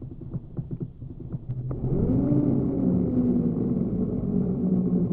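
Abu Garcia Ambassadeur 1500C baitcasting reel on a cast: a few light clicks, then about two seconds in the spool spins up with a whirring whine. The whine rises quickly in pitch, then slowly falls as line pays out.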